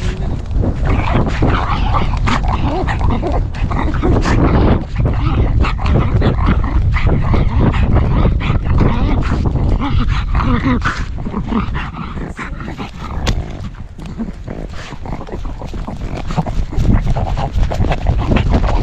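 A pug breathing hard and making small dog noises as she runs, heard right up close from a GoPro on her back harness. Under it is a steady rumble of wind on the microphone and frequent short knocks as the camera jolts with her strides.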